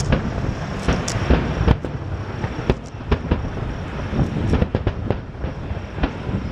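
Aerial fireworks display: a rapid, irregular string of shell bursts and crackling bangs, several at times within a second.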